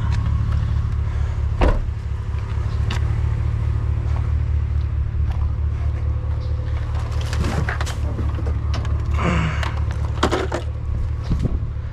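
Steady low rumble of an idling vehicle engine, with scattered knocks and clatter of items being handled; the sharpest knock comes about two seconds in.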